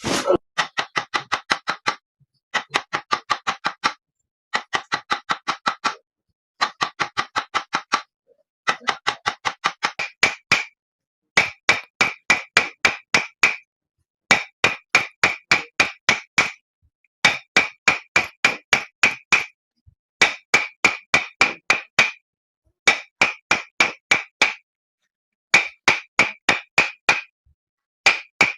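Rapid rhythmic percussive tapping on the body during a chiropractic treatment, in bursts of about two seconds with short pauses between, around seven sharp strikes a second.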